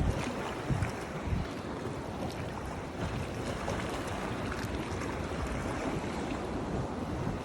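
Sea waves washing with wind buffeting the microphone, a few stronger low gusts about a second in.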